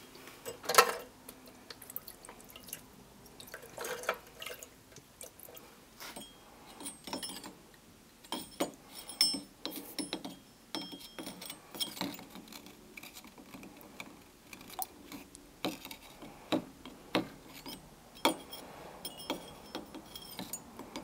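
Irregular light clicks, drips and small splashes as a steel hatchet head is dipped into and lifted out of a tube of acid etchant.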